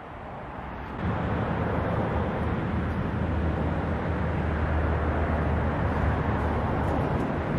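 Steady road traffic noise with a low rumble, getting louder about a second in and then holding.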